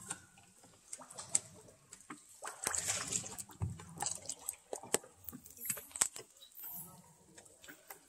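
Water dripping and sloshing inside a cave, with irregular sharp drips over low, washing water sounds.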